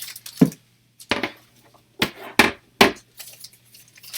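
Hard plastic CGC graded-comic slabs clacking and knocking against each other and the table as they are picked up and set down: about five sharp knocks.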